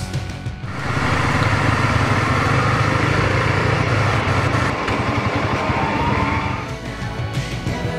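Honda CRF Rally motorcycle's single-cylinder engine running steadily under way, a low drone heard from on the bike. Rock music plays for a moment at the start and comes back near the end.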